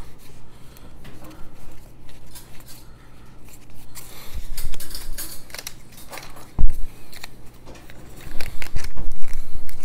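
Playing cards being handled and flipped through by hand, with small snaps and rustles of card stock. A single dull knock comes about two-thirds through, and near the end a small cardboard card box is handled, giving denser rubbing and knocks.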